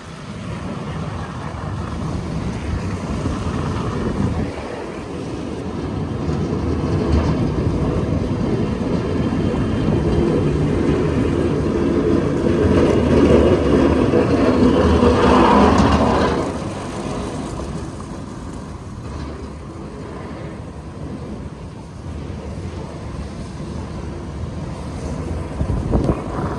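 Street traffic noise, with a vehicle engine growing louder toward the middle and dropping away about two-thirds through.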